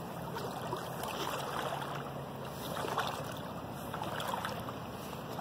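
Steady rush of a flowing tailwater river.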